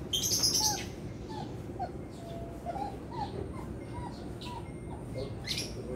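A beagle whimpering: a string of short, high whines about three a second, with a sharp bright sound right at the start and another near the end.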